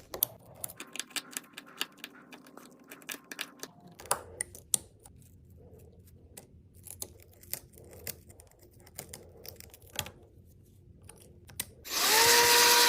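Scattered small clicks, ticks and scrapes of a hand tool picking and prying at the broken back glass of an iPhone 13 Pro Max. Near the end a much louder hiss with a steady tone sets in.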